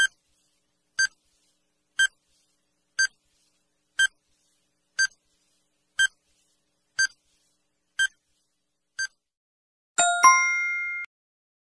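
Countdown timer sound effect: a short electronic tick once a second, ten times, then near the end a louder two-note chime that rings for about a second, marking time up and the answer reveal.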